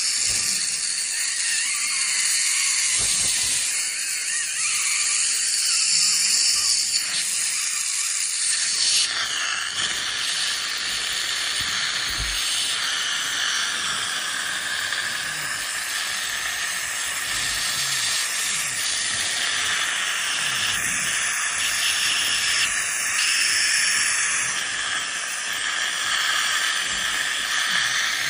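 Ultrasonic dental scaler working on tartar along the lower front teeth, its water spray giving a steady high hiss.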